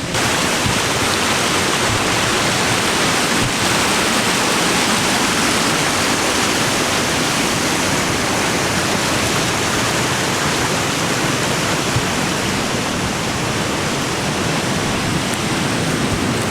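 Steady rush of a waterfall: the Mekong cascading over rocks, a constant even roar with no breaks.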